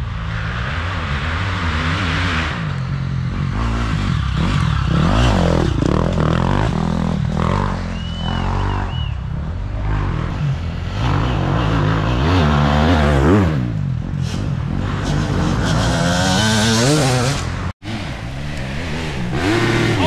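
Off-road dirt bike engines revving up and down as riders work along a wooded enduro trail, with clattering and scraping from the bikes, broken by a brief gap near the end.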